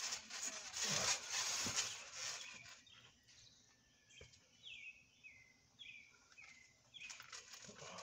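Two thumps with a rustling rush as bodies crash down onto a trampoline mat, followed by a bird calling a series of about six short downward-sliding chirps.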